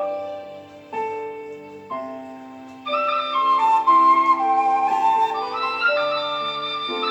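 Instrumental Thai popular-song arrangement on flute (khlui). Three struck chords that die away open the passage, then the flute melody comes in about three seconds in and carries on in held, stepwise notes over the accompaniment.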